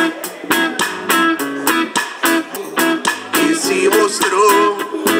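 Live reggae band playing: strummed guitars and conga drums keeping a steady beat of about three strokes a second.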